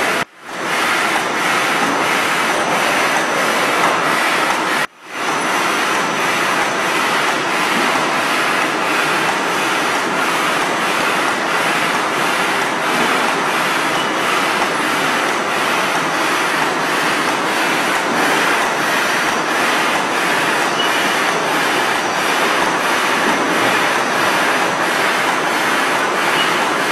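Paperboard edge protector production line running: a steady, dense mechanical clatter and whir of the paper-fed forming machinery. It drops out briefly about five seconds in.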